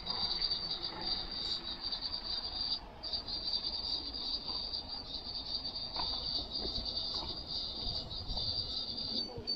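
Insect chirring: a steady high-pitched buzz that breaks off briefly about three seconds in, over a low outdoor rumble of wind and distant traffic.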